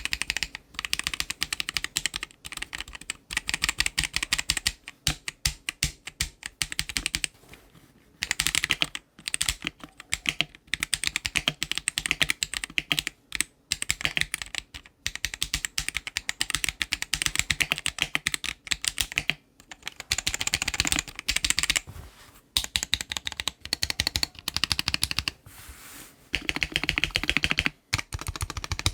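Typing on a mechanical keyboard fitted with stock, unlubed Akko Radiant Red linear switches: rapid runs of key strokes in bursts of a few seconds with short pauses between them.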